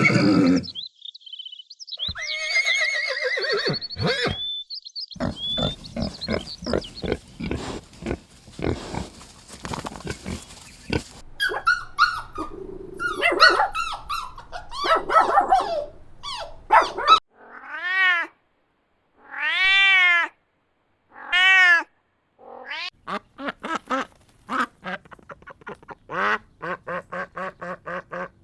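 A string of different animal calls edited one after another. Near the middle are three drawn-out calls, each rising and then falling in pitch, about two seconds apart.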